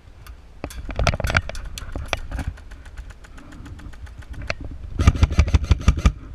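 Airsoft guns firing: scattered shots and short strings of rapid fire, then, about five seconds in, a fast full-auto burst of about ten shots a second lasting about a second.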